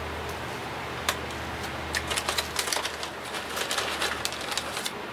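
Crinkling plastic bag being handled: quick irregular clicks and crackles, most of them from about two seconds in, over a steady low hum.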